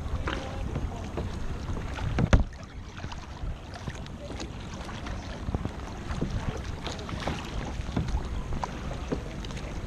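Kayak paddling on open sea: paddle blades dipping and splashing and water lapping at a sit-on-top kayak's hull, with wind buffeting the microphone. A sharp knock a little over two seconds in.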